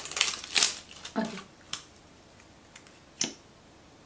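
Packaging crinkling and tearing in quick rustles as a liquid eyeshadow tube is unwrapped, then a single sharp click about three seconds in as the tube is opened and its applicator wand pulled out.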